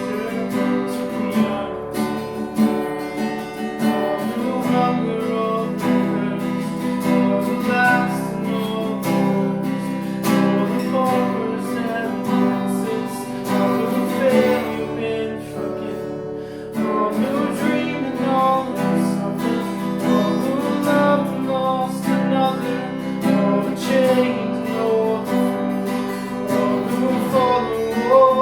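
Worship song with strummed acoustic guitar and singing.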